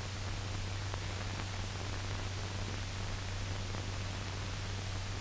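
Steady hiss and low hum of an old 1940 film soundtrack, with no other sound.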